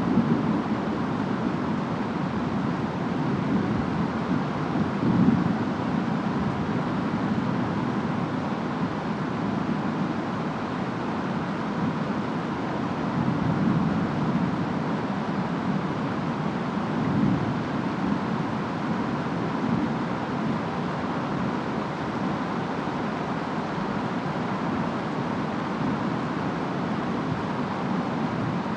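Steady rainstorm ambience: rain and wind over a low rumble that swells briefly a few times.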